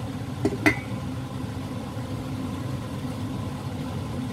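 An enamelled lid clinks twice as it is set onto a large enamel cooking pot, about half a second in, over a steady low mechanical hum.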